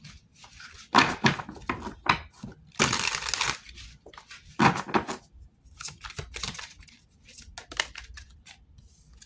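Tarot cards being drawn and laid down: a series of short papery rustles, slides and taps, with a longer slide about three seconds in.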